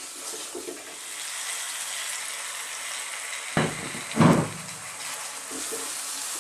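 Red lentils and berbere frying in oil in a non-stick pan: a steady sizzle, with a wooden spoon stirring and scraping through them. Two louder bumps come a little past halfway.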